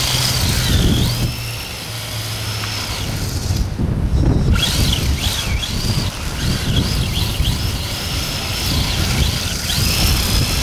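Electric motor of a radio-controlled drift car whining as the throttle is worked, the pitch rising and falling over and over. The whine cuts out for about a second just before the middle, all over a low rumble.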